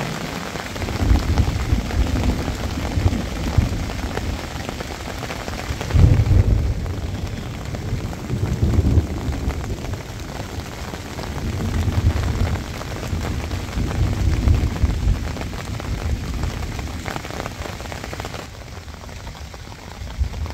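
Steady rain pattering on the fabric of a pop-up hunting blind, with low rumbling swells every couple of seconds, the strongest about six seconds in.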